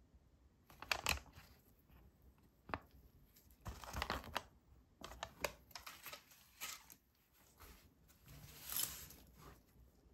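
Paper and packaging crinkling and rustling as a LEGO minifigure pack and its checklist leaflet are handled, in irregular bursts, with a few sharp clicks of small plastic pieces between.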